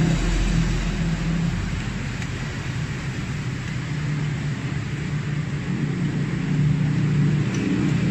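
Aluminium welding arc on a cracked engine case, a steady hiss over a low hum, as a leak in the repair is welded over again.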